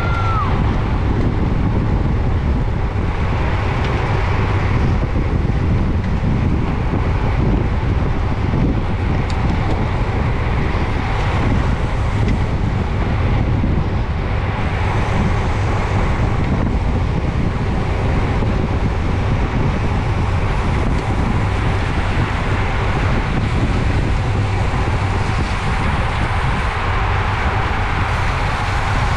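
Steady wind buffeting on a bicycle-mounted camera's microphone while riding at speed, a constant low rush with no breaks.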